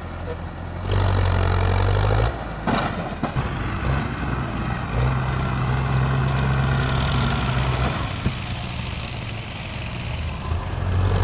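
Tractor engine working hard under load as it pulls a trolley heaped with earth, its note stepping up and down with the throttle. A few sharp knocks sound about three seconds in.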